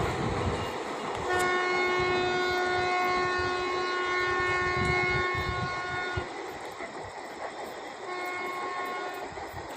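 Indian Railways locomotive horn with a conch-like (shankh) tone, one steady pitch held in long blasts: the first from about a second in to about six seconds, another from about eight seconds in. Underneath is the rumble of the passing train.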